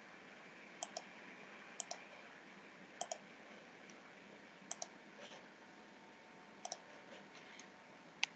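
Faint computer mouse button clicks, coming in quick pairs about five times, with a single click near the end, over a low steady hiss.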